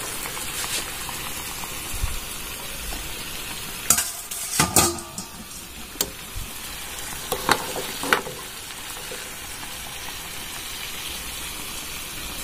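Steady bubbling hiss of a pan of water at a full boil, with a steel ladle clinking against the pan and a steel bowl several times, between about four and eight seconds in, as boiled eggs are lifted out.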